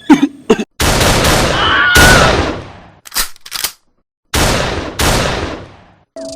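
Gunfire sound effects: several heavy shots, each trailing off in a long echoing tail, with a quick volley of three short shots near the middle.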